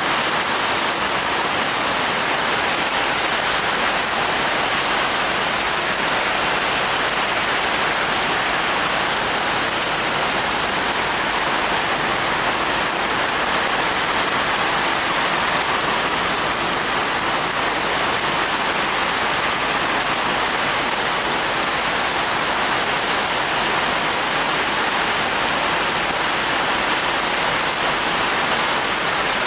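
Heavy rain falling steadily on garden plants and hard surfaces: an even, unbroken hiss.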